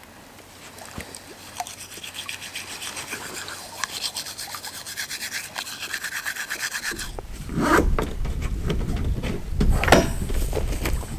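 Toothbrush scrubbing teeth in quick rhythmic strokes for about seven seconds. Then wind rumbles on the microphone, with two dull thumps.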